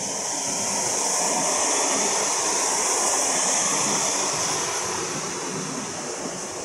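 Passenger train coaches rolling past along the platform track and moving away: a steady rolling noise with a strong high hiss, loudest about halfway through, then fading as the last coach goes by.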